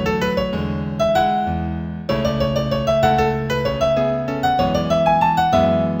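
Piano-toned keyboard music in A major at a moderate tempo of 96 beats a minute. A melody of short, quickly struck notes plays over held low notes that change about every second.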